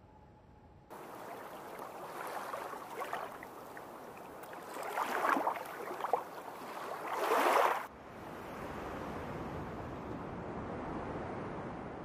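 Water washing along a shoreline, swelling into several louder splashing surges. It then changes suddenly to a steady rush of surf.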